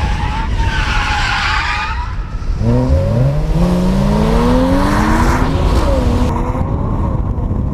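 Race car tires squealing and skidding for the first couple of seconds, then the engine revving up, its pitch climbing as the car accelerates.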